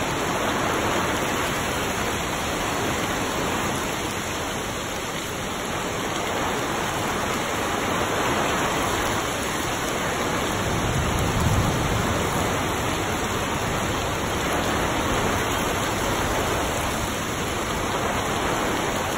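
Heavy rain pouring down steadily on trees and grass in a rainstorm, an even hiss of rainfall. A brief low rumble comes about eleven seconds in.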